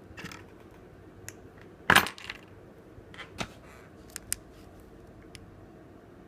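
Small hard clicks and taps of hand tools and phone parts being handled on a work surface, the loudest a sharp knock about two seconds in, with lighter ticks around it.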